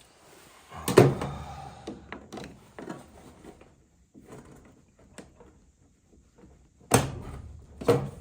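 Sharp knocks and clatter from hands working on a gas furnace's parts and hoses: one loud knock about a second in with rattling after it, lighter clicks in the middle, and two more loud knocks near the end.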